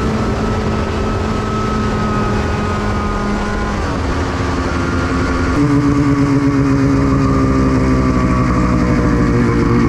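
Ski-Doo snowmobile's liquid-cooled engine running steadily while riding a trail, with a rumble of track and wind underneath. The engine note dips about four seconds in and changes again a second and a half later.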